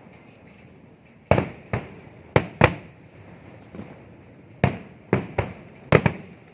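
Fireworks going off: a run of about nine sharp, loud bangs at uneven intervals, some in quick pairs, each trailing off in a short echo.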